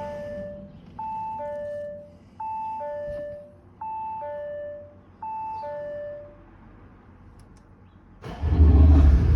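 The Audi A7's two-tone warning chime, a high note then a low one, sounds four times about every second and a half. About eight seconds in, the 3.0-litre twin-turbo V6 diesel cranks and fires with a sudden loud rumble and settles into running: a cold start in winter after a week without starting.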